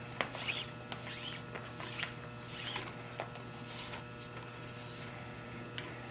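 Nylon 550 paracord swishing and rubbing as lengths of it are pulled through a loop around a paddle handle: a run of short, zipper-like swishes, several in the first three seconds and fewer after.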